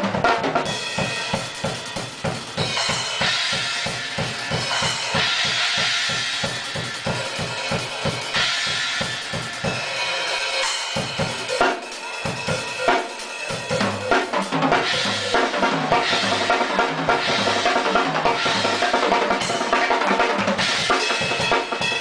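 Drum kit playing a fast, busy beat of steady bass drum strokes with snare hits and rimshots, set in a music track with steady pitched sounds under it.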